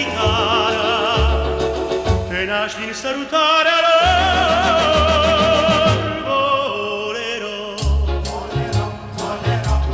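A male singer's voice singing a romantic bolero song over band accompaniment, holding one long note with a wide vibrato from about three seconds in until about six seconds. Short, sharp percussion strikes come in near the end.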